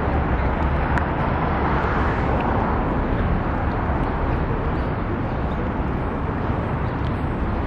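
Steady city street traffic noise: cars and other vehicles running on a busy multi-lane avenue, an even wash of engine and tyre noise with a deep low hum.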